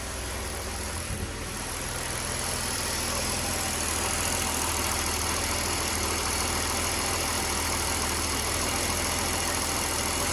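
Mercedes M103 3.0-litre straight-six engine running, grows louder about two seconds in and then holds steady. It has a slight intermittent stumble, a misfire on its Megasquirt MS3x injection conversion that the owner has not traced despite new coils, plugs, injectors and good compression.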